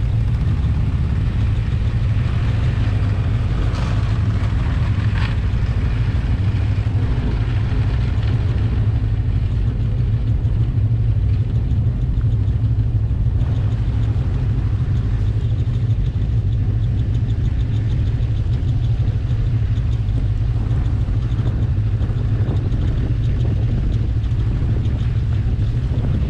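Snowmobile engine running at a steady speed: a constant low drone.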